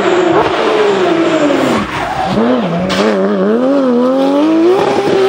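Porsche 911 GT3 rally car's flat-six engine at high revs: the revs fall away over the first two seconds, then climb again and waver up and down.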